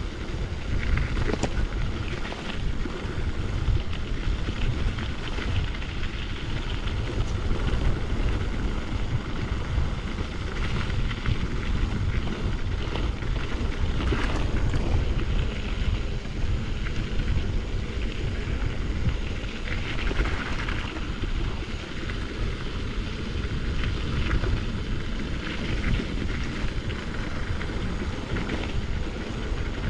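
Wind buffeting a riding mountain biker's camera microphone, over a steady low rumble of tyres rolling on the trail with scattered small rattles and clicks.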